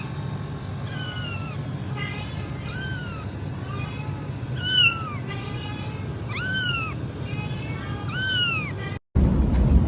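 A kitten meowing over and over in high-pitched, rising-and-falling cries, about one a second, with fainter meows in between. The sound drops out briefly near the end.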